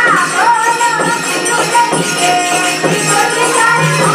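Recorded dance music: a winding melody with sliding ornaments over a steady low drone, with a percussion beat about once a second.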